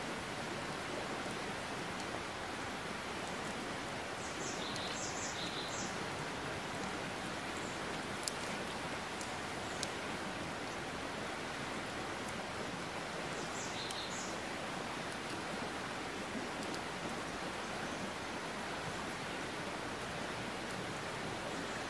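Steady, even outdoor hiss of forest background noise, with a few short high bird chirps about five seconds in and again near fourteen seconds, and two brief sharp clicks around eight and ten seconds.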